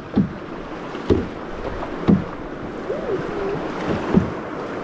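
Rushing water of river rapids around an open canoe, with paddle strokes thumping and splashing about once a second.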